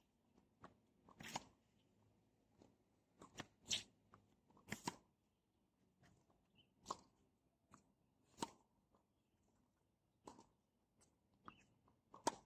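Tennis rally: the ball is struck back and forth by rackets, a sharp pock every second or two, with softer taps of bounces between.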